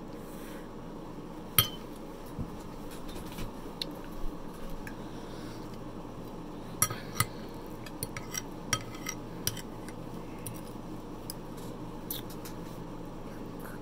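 Metal fork clinking and scraping against a ceramic plate while eating: one sharp clink about a second and a half in, a run of clinks around the middle, and another near the end.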